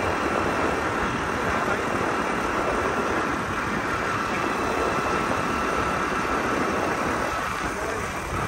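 Motorcycle running steadily as it rides along a road, its engine noise mixed with wind rushing and buffeting over the microphone.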